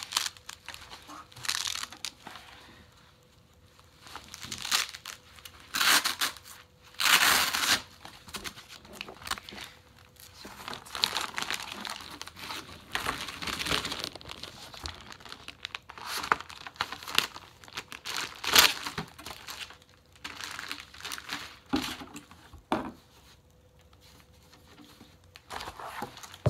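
Irregular rustling and crinkling of a nylon plate carrier, plastic packaging and cardboard being handled as a plastic hydration plate is worked into the carrier's back-plate pocket, with the loudest bursts about six to eight seconds in and again near eighteen seconds.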